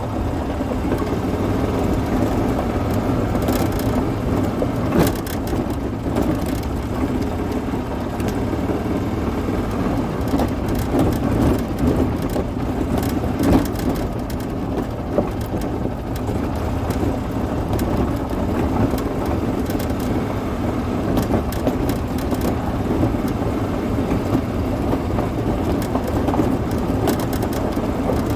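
Yamaha golf cart driving along a gravel lane: a steady running noise, with tyres crunching over the gravel and occasional short rattles.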